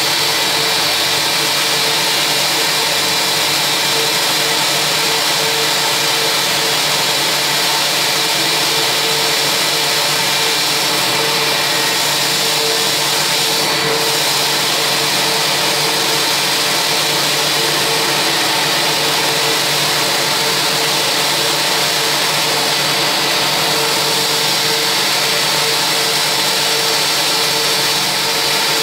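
Jet turbine noise from a parked Airbus A320 at the gate: a steady whine and hiss with a constant hum, holding level without spooling up or down.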